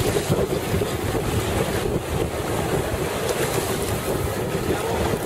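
Steady wind buffeting the microphone over the wash and splash of choppy water around a boat under way.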